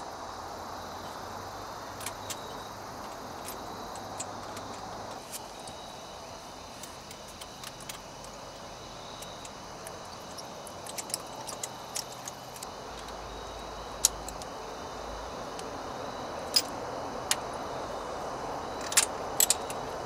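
Scattered metallic clicks and clinks of a ratchet and socket on the engine's cylinder head as spark plugs are fitted, more frequent in the second half, over a steady background hiss.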